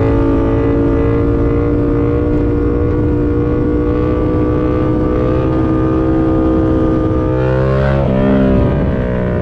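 Yamaha MT-07's 689 cc parallel-twin engine through a full SC-Project CRT exhaust, pulling under throttle at highway speed with its pitch rising slowly, over wind rush. Near the end the engine note drops and wavers.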